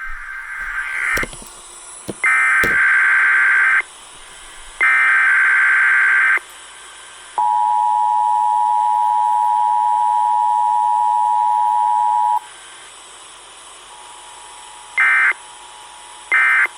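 Emergency Alert System data tones: three warbling digital header bursts about a second and a half each. Then the steady two-note attention signal sounds for about five seconds, and near the end come three short end-of-message bursts.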